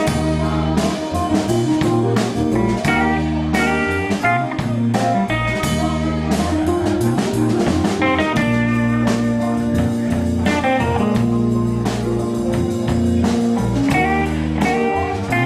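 Instrumental break of a rock band: a guitar plays a melodic lead over bass and a drum kit.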